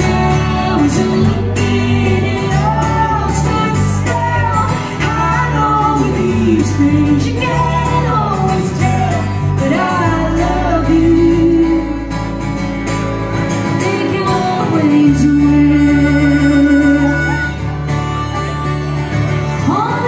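A band playing live in a large hall: a woman sings the lead over a strummed acoustic guitar and a low bass line.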